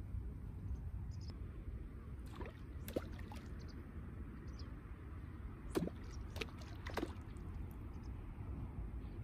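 Shallow water sloshing a few times around rubber boots as someone shifts and steps in it, over a steady low rumble.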